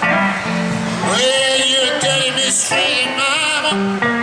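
Live solo blues: a hollow-body electric guitar playing through an amplifier, with a long held note wavering in pitch from about a second in to near the end.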